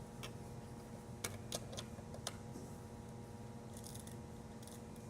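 Plastic Lego bricks clicking and knocking as they are handled, with five sharp clicks in the first two and a half seconds and a few fainter ticks near four seconds in.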